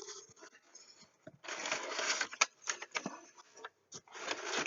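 Packaging being handled and opened: two spells of rustling and crinkling, about a second and a half in and again near the end, with sharp little clicks and taps between them.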